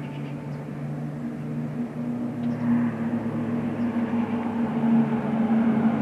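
A formation of nine Pilatus PC-7 single-turboprop trainers droning overhead, a steady low propeller hum that grows gradually louder as they approach.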